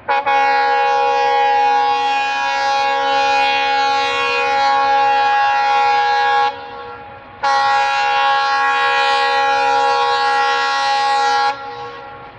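Diesel locomotive's air horn sounding two long blasts of one steady multi-note chord as the train approaches: the first about six seconds, then after about a second's pause a second of about four seconds. A faint rumble of the train runs under the pause and after the second blast.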